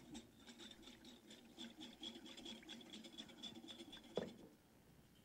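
Whisk beating a mustard and orange juice vinaigrette in a bowl: a faint, quick run of even scraping strokes, with a single knock about four seconds in, after which the whisking stops.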